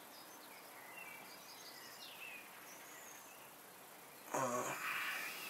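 Quiet outdoor ambience with faint bird chirps. About four seconds in comes a brief, louder, low vocal sound, like a murmur.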